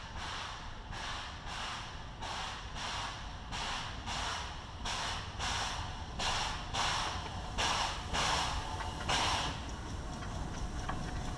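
C2 class 0-8-0 narrow-gauge steam locomotive approaching with a loaded coal train, its exhaust beating about twice a second and growing louder. The beats stop about nine and a half seconds in, and a thin steady whine follows.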